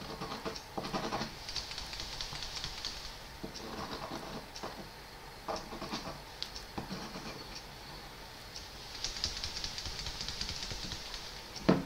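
Rotring Isograph technical pen handled and tried out on paper: faint scattered clicks and taps, and the fine tube nib scratching lightly across the paper, most noticeably near the end.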